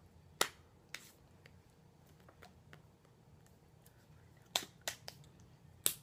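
About six sharp slaps of hands striking each other during sign language signing. The loudest come about half a second in and just before the end, with a quick group around four and a half to five seconds.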